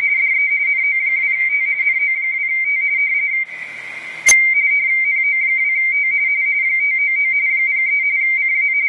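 Radio teletype (RTTY) signal from an ICOM IC-7410 transceiver on 10 metres: a high warbling tone switching rapidly between two close pitches as the characters are keyed. About three and a half seconds in it drops to receiver hiss for under a second, then returns with a click.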